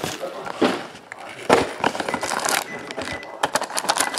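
Handling of a foil-wrapped trading-card box and its packs: irregular rustling, crinkling foil and cardboard scraping as the box is opened and packs are lifted out, with a quick run of crackles near the end.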